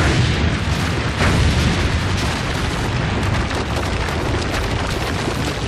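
Explosion sound effect of a mine being blown up: a sudden blast, a second surge about a second in, then a long, dense rumble of the cave collapsing.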